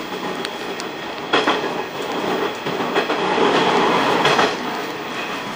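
Train running at line speed, heard from inside the leading car: wheels clacking over rail joints in a handful of sharp clicks over a steady running noise. It gets louder for a second or so past the middle.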